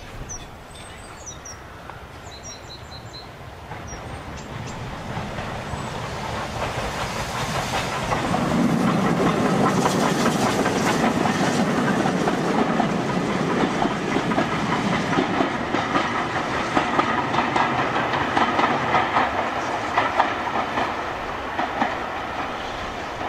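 Steam-hauled passenger train passing close by: the locomotive's sound builds over several seconds to a peak about eight seconds in, then the coaches' wheels click over the rail joints as the train draws away and slowly fades.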